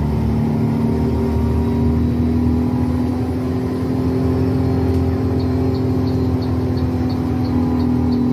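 Inter-city bus running under way, its horn held in one long steady blast, and from about five seconds in the right turn indicator ticking at about three ticks a second: the horn-and-right-signal warning of a bus overtaking.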